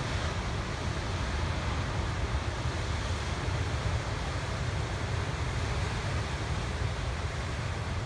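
Ocean surf breaking on a rocky shore, a steady wash of noise, with wind buffeting the microphone as a low, unsteady rumble.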